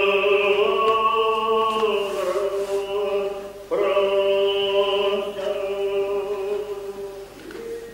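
Chanting in long held notes: one note that drops a step in pitch about two seconds in, then a second long note starting after a short break.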